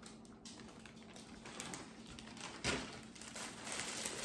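Plastic packaging crinkling and rustling as a garment in a clear plastic bag is pulled from a poly mailer and handled, with a louder rustle a little over halfway through.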